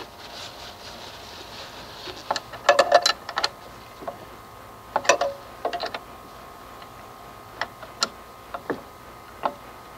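Irregular light clicks and taps of a wrench working the brake-line flare nuts into a master cylinder: two quick clusters, then scattered single ticks.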